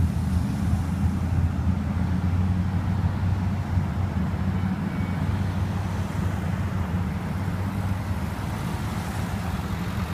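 Cars and pickup trucks driving past in a slow line of traffic: a steady low rumble of engines and tyres, with no siren.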